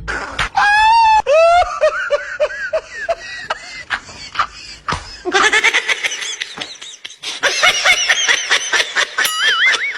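Comedy ringtone of very high-pitched, squeaky laughter. A few gliding squeals come near the start, then rapid, fast-pulsing laughing fills the second half.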